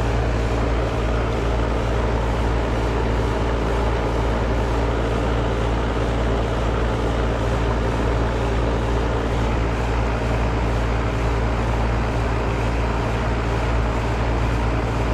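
A 4-ton residential air-conditioning condensing unit running: the compressor's steady low hum under the even whoosh of the condenser fan. The compressor is back in operation on a newly replaced capacitor, drawing about 11.7 amps.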